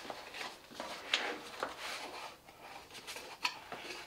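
Cardboard mailer box being opened by hand: the flaps and lid pulled free with a series of short scrapes, rustles and taps of cardboard.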